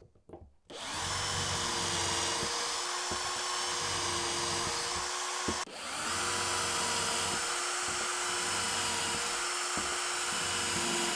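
Cordless drill running at a steady speed as it bores 3 mm locating holes through the UJK Parf guide into the wooden workbench top. It goes in two long runs with a brief stop about halfway, starting a moment after a short quiet gap.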